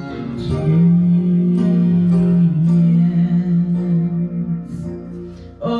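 Worship-song music: long held notes with guitar accompaniment, the sound easing off near the end.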